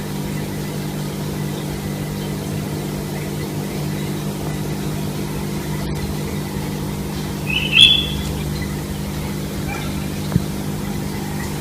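A steady low machine hum runs throughout. About eight seconds in, a parrot gives one short, high chirp, and a small click follows a couple of seconds later.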